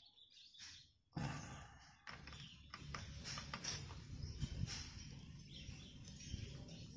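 Faint, irregular small clicks and scraping of a screwdriver tightening the screws of a washing machine's water-inlet hose adapter, starting about a second in.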